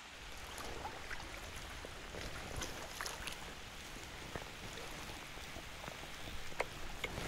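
Light rain falling on a river and on the camera: scattered, irregular drop ticks over a soft, steady hiss of water.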